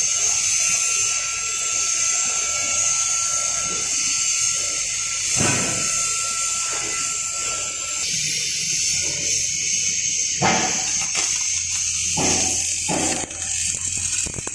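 Automatic TIG welding arc hissing steadily. A thin steady whine runs under it and stops about halfway through, and a few knocks and rustles come in the second half.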